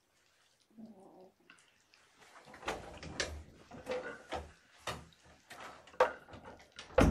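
Kitten growling to guard its wet food: a short low growl about a second in, then a run of rough, broken growls from about two and a half seconds on that grow louder near the end.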